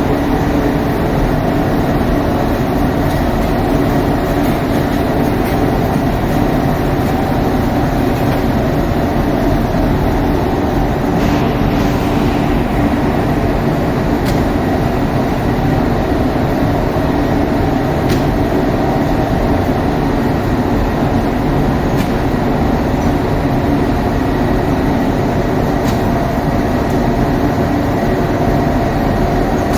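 Steady, loud machine hum with a few faint clicks.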